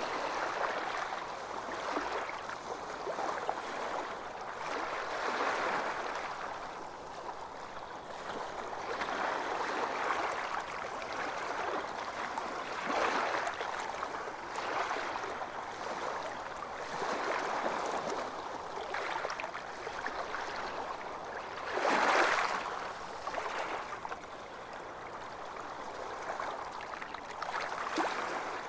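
Small waves washing onto a beach, the hiss of water swelling and fading every few seconds, with one louder wash about two-thirds of the way through.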